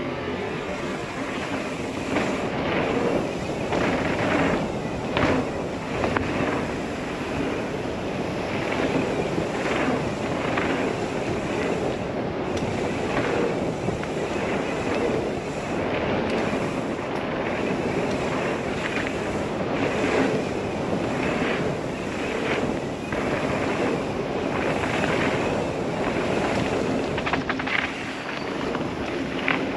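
Wind rushing over a helmet-camera microphone during a fast mountain-bike descent on a dirt trail, with steady tyre noise and frequent short rattles and knocks from bumps in the trail.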